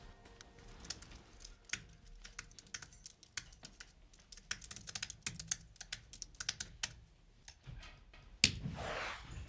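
Typing on a computer keyboard: irregular runs of key clicks. Near the end comes a single louder knock, followed by a short rushing noise.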